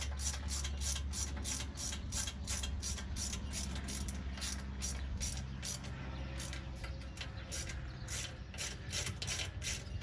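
Socket ratchet wrench clicking as it tightens the carburetor adapter mounting bolts on a Predator 212 engine, about four clicks a second in a steady run.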